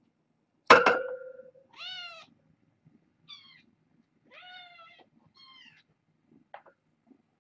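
Young kittens meowing four times in high, rising-and-falling calls. About a second in, a sharp knock with a short ringing tone, the loudest sound here.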